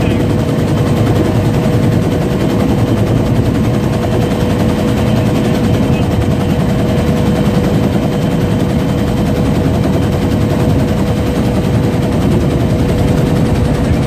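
Helicopter rotor and engine noise heard from inside the cabin with the door open: a loud, steady, rapid rotor chop over a steady whine.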